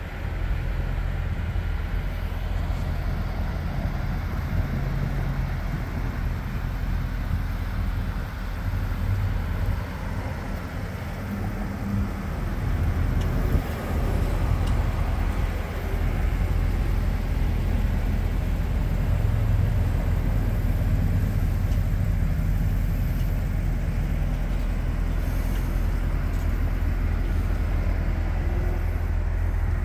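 Steady low outdoor rumble with no distinct events, the kind of vehicle-like background noise PANN files under car and traffic.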